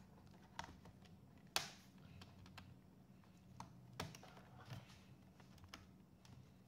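Faint, scattered small clicks and taps as a laptop's case parts are pressed into place by hand, with one sharper click about one and a half seconds in.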